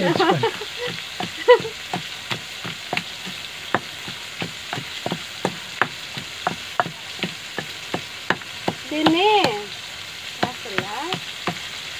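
Pestle pounding in a mortar: steady thuds about three a second. A woman's voice says a word about nine seconds in.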